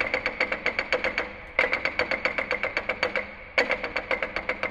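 Prepared marimbas played in rapid, even repeated strokes, about nine a second, hammering the same dry high notes. The pattern comes in three bursts that each restart loud, one at the start, one about a second and a half in and one near the end.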